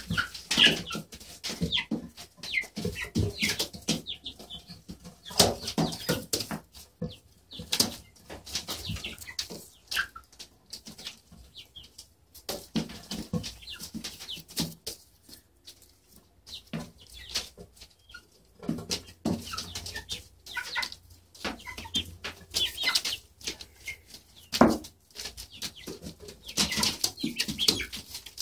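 Hens scuffling and pecking at bread, with irregular sharp clicks and rustles and a few short clucks.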